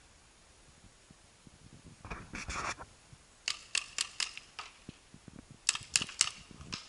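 Paintball marker firing in quick strings: a run of four sharp shots in under a second, a pause, another string of four, then a single shot near the end.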